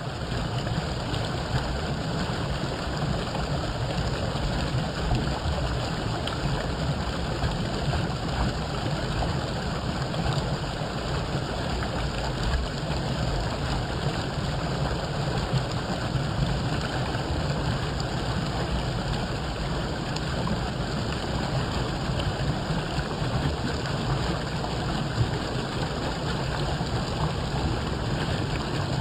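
Running water: a steady rushing flow with a heavy low rumble, unbroken throughout.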